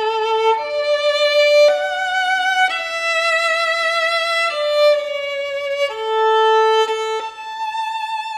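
Solo violin playing a slow bowed melody with vibrato, moving to a new held note every second or so.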